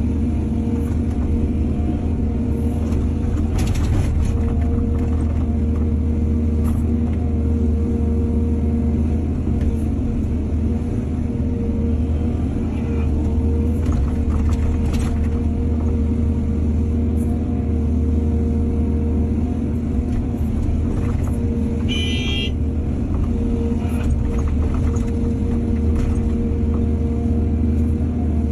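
Heavy diesel engine of an excavator running steadily under load, a deep, even drone, with scattered faint knocks and a brief high-pitched squeal late on.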